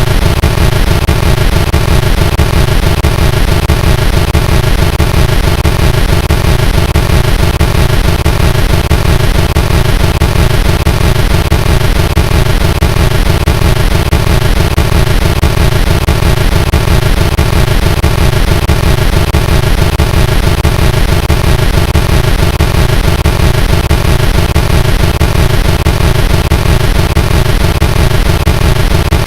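Loud, heavily distorted, digitally processed audio: a dense, unchanging wall of harsh noise with a fast pulsing rumble underneath.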